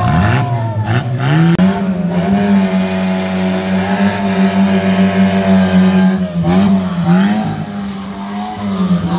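Renault Twingo's small petrol engine revved up and held at high, steady revs as the car spins in circles on wet tarmac. The revs drop briefly and pick up again about six and a half seconds in, and once more near the end.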